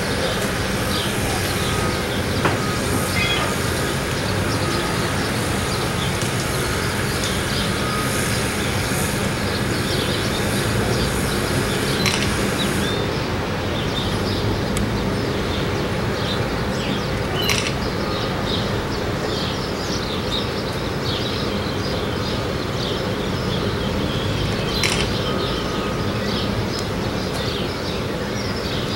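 Steady outdoor rumble and hiss with faint short high chirps throughout and a few sharp clicks.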